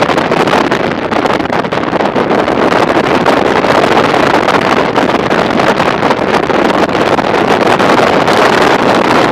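Steady loud wind rush on the microphone of a camera mounted on a Honda ST1300 Pan European motorcycle riding at speed, with the bike's engine running under it.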